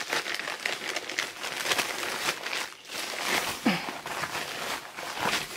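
Plastic padded mailer crinkling and rustling as it is handled by hand, in an irregular run of crackles.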